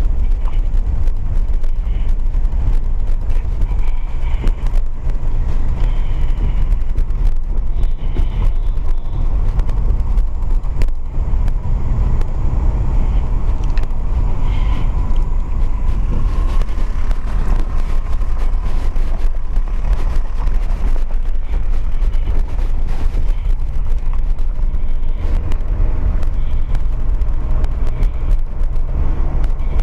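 Steady low rumble of a car being driven along a road, with engine and tyre noise heard from inside the cabin.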